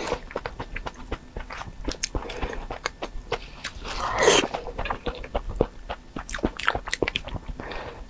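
Close-miked eating sounds: wet chewing, lip smacks and small mouth clicks with chopsticks ticking, and a louder slurp about four seconds in as a saucy mouthful is taken in.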